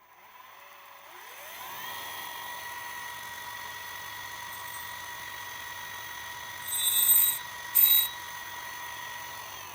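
Spindle motor of a small home-built cutter grinder spinning up with a rising whine, then running at a steady high pitch. About 7 and 8 seconds in come two brief, louder, harsh bursts.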